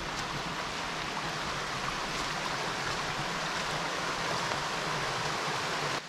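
A small woodland waterfall cascading down a rocky stream bed into a pool: falling water running steadily.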